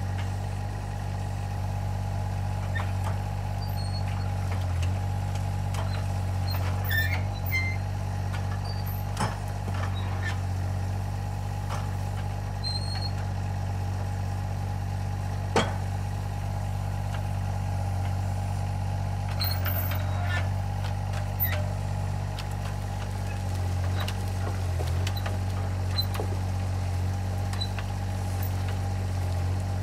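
Alstor 834 mini forwarder's 3-cylinder diesel engine running steadily while its crane works, with a steady higher whine over the engine drone. Scattered knocks and clunks come as birch logs are gripped and loaded, the sharpest about halfway through.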